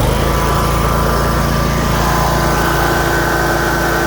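The 23 horsepower Kohler V-twin engine of a Cub Cadet RZT zero-turn mower runs steadily just after starting.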